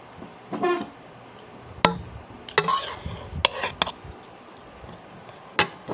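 Background clatter: a short pitched tone about half a second in, then a scatter of sharp clicks and knocks.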